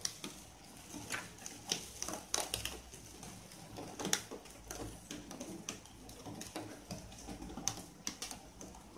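A steel spoon scraping and spreading a thick corn-and-cheese topping over a slice of bread, with irregular light clicks and taps as the spoon scoops from a plastic box.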